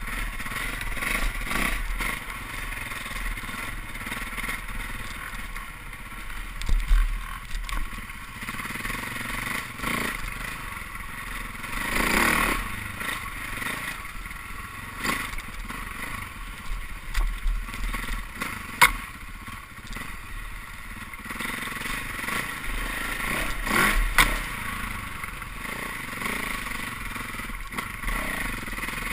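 Dirt bike engine running and rising and falling with the throttle as it is ridden over a rough, rutted trail, with clatter and sharp knocks from the bike over bumps, including a loud knock about 12 seconds in and more near 19 and 24 seconds.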